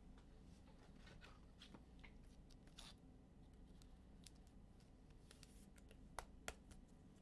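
Faint handling noise of trading cards being flipped through and slid, light rustles and scratches, with two small sharp clicks about six seconds in.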